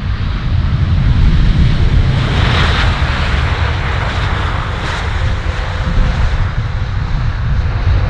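Large jet airliner passing close as it comes in to land, its engine noise swelling to a peak about three seconds in and then easing off, over a heavy wind rumble on the microphone.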